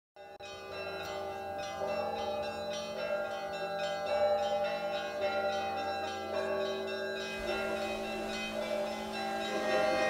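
Church bells pealing, many bells struck in quick succession with their tones ringing on and overlapping, over a steady low hum from a large bell.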